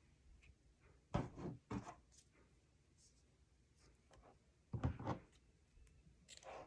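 Cardstock album pages being handled on a craft table: short knocks and scrapes in two brief clusters, about a second in and again near the end.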